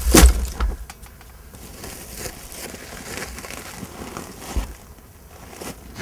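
Rustling and crinkling handling sounds with scattered soft taps and clicks. A louder rustle comes right at the start.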